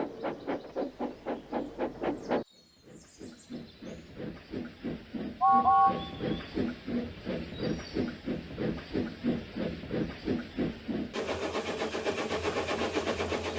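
Steam locomotive chuffing in a steady rhythm, about four to five beats a second, with a brief two-note whistle about five and a half seconds in. The sound drops out briefly around two and a half seconds, and near the end the chuffs come faster.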